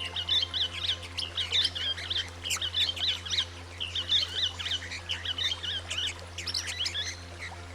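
Swift parrots calling: a rapid, dense series of short high chirps, over a steady low hum.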